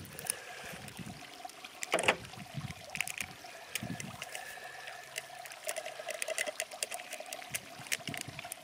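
Sugar-free drink powder tipped from its packet into a plastic measuring jug of water and stirred in: a soft trickle with scattered light clicks and taps.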